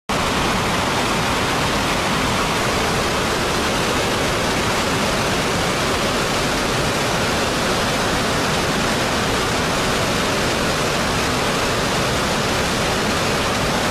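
Floodwater pouring over a river weir and churning in the torrent below it: a steady, loud, unbroken rush.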